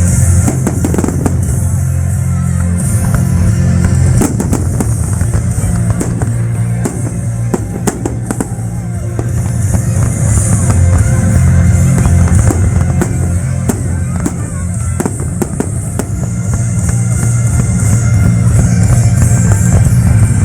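Fireworks bursting in a string of sharp bangs over loud music with a heavy bass and drum beat.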